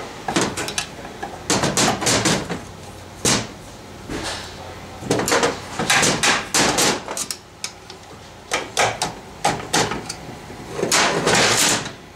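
Hammer tapping an aluminium cover on a Subaru Lineartronic TR690 CVT case to free it from a stuck dowel pin: clusters of sharp metallic knocks, several groups over the span, mixed with the scrape of a screwdriver prying at the cover.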